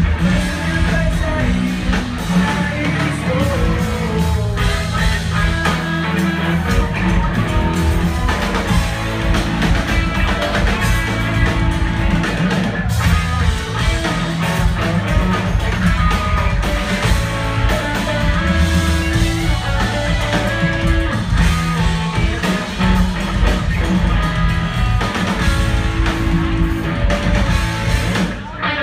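Live rock band playing loud and steady, with guitar, keyboards and drums, heard from the audience in a club, with a brief break just before the end.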